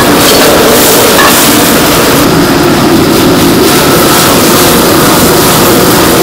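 Loud steady roar of a high-pressure gas wok burner, with sizzling from the wok as battered fried fish pieces are tossed in sauce.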